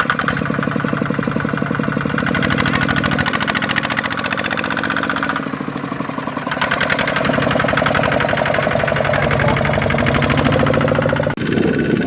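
Kubota single-cylinder diesel tractor engine running hard with a fast, even knocking beat. It eases off for about a second halfway through, then picks up again, and the sound changes abruptly just before the end.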